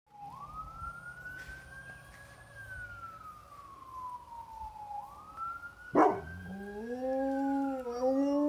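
Ambulance siren wailing, slowly rising and falling in pitch. About six seconds in there is a sudden loud sound, and then a bullmastiff starts howling along with the siren, its howl rising in pitch.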